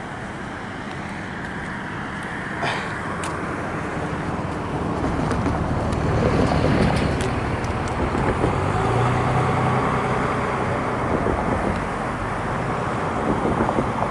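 Road traffic passing: a motor vehicle's noise swells about halfway through and holds, with a short click about three seconds in.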